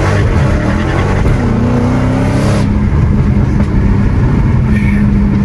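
2015 Dodge Hellcat's supercharged 6.2-litre V8 under hard acceleration, its pitch climbing and then levelling off about halfway through. Traction control is on, and the driver can feel it holding the car back.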